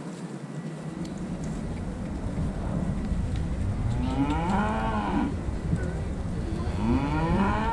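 Beef cattle mooing: two long moos, each rising and then falling in pitch, the first about four seconds in and the second near the end.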